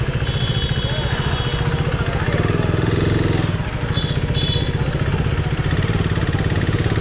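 Motorcycle engine idling and running at low speed with a steady low throb, with street chatter around it. Short high-pitched beeps sound near the start and twice about four seconds in.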